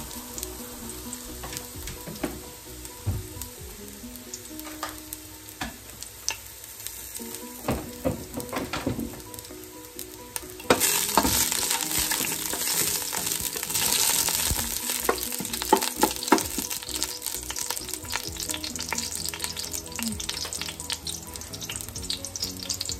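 Ginger slices sizzling in hot oil in a stainless steel pot. About eleven seconds in the sizzling gets suddenly louder and brighter, and a spatula stirs the ginger, with scattered clicks and scrapes against the pot.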